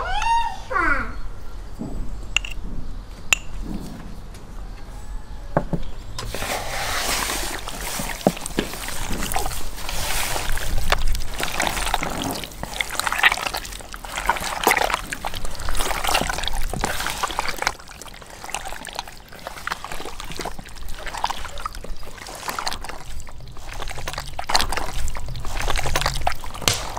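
Bare hands squeezing and kneading raw whole chickens in a plastic tub of wet marinade, making irregular wet squelching and slapping that starts about six seconds in and goes on steadily.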